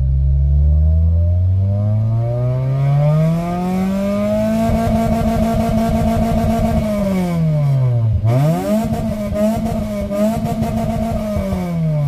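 Car engine free-revving with the car standing still: it climbs steadily from about 2000 rpm to near 7000 rpm and holds there, drops back, then snaps up to high revs again and falls away near the end.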